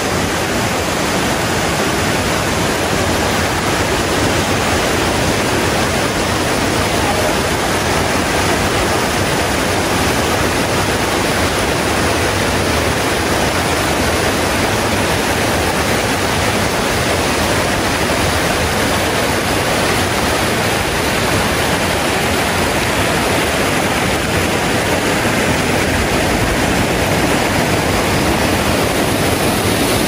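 Loud, steady rush of running water, unchanging throughout.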